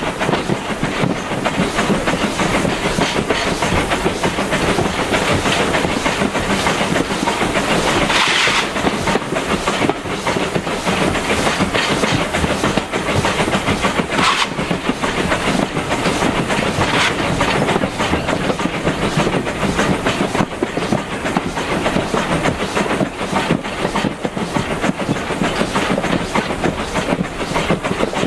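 Coach of a steam-hauled heritage train running along the line: steady wheel-on-rail rumble and rattle with clickety-clack over rail joints, and a brief louder high-pitched moment about eight seconds in.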